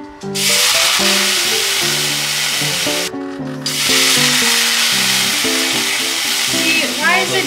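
Background music with a gentle melody, over a loud, even sizzling hiss as liquid is poured into a hot stainless-steel frying pan. The hiss breaks off for about half a second around three seconds in, then carries on.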